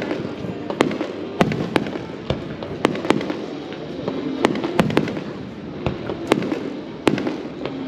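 Aerial firework shells bursting: about a dozen sharp bangs at irregular intervals, some in quick pairs.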